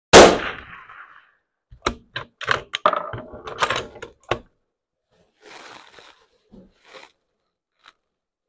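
.308 Winchester rifle firing one shot, which rings on and dies away over about a second. A couple of seconds later the bolt is worked by hand: a quick run of sharp metallic clicks and clacks as the spent case is ejected and the next round chambered, then a few faint knocks of handling.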